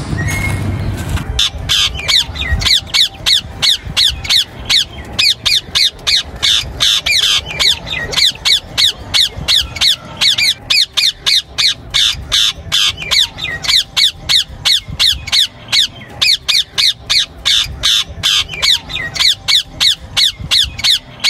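A flock of small green parakeets squawking: harsh, rapid calls, each falling in pitch, coming about three a second. They start about a second in after some low rumble.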